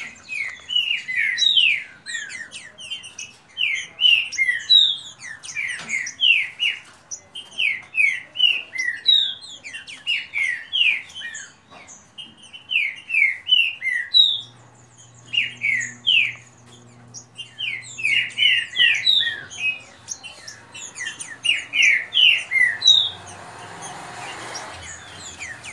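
Caged green-winged saltators (trinca-ferro) singing against each other in fast, dense song. Their phrases of quick, clear notes slide downward and follow one another almost without break, with a few short pauses.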